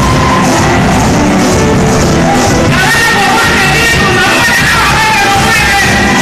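Loud live music from a group of large wooden hand drums playing a steady beat, with a lead voice singing over it.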